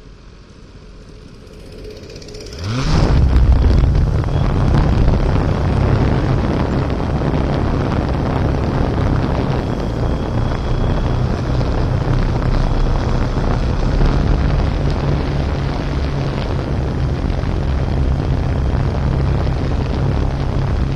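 Quadcopter drone's motors spin up with a rising whine about two and a half seconds in as it lifts off from the snow, then a loud steady rotor noise with a heavy low rumble as it climbs.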